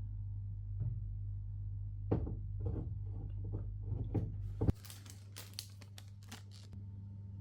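Packaging being handled: a few knocks, then plastic or paper packing crinkling and tearing. A low hum stops suddenly about two-thirds of the way in.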